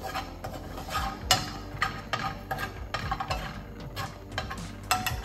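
Metal kitchen tongs tossing slivered almonds as they toast in a frying pan: irregular clicks and scrapes of the tongs against the pan and the nuts, with a sharper knock near the end.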